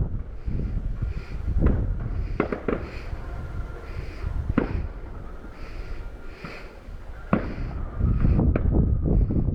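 A distant fireworks display: about five sharp bangs from exploding shells, over a continuous low rumble of further bursts, which grows louder near the end.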